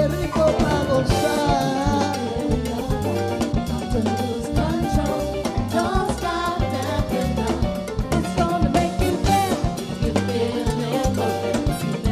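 Live R&B song by a female vocal group: women singing over a band with a steady drum-kit beat and a strong bass line.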